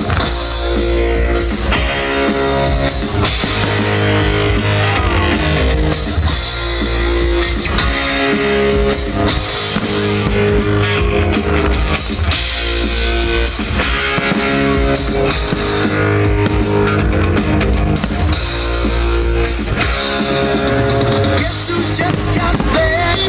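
Rock music with guitar, bass and drum kit playing a steady beat.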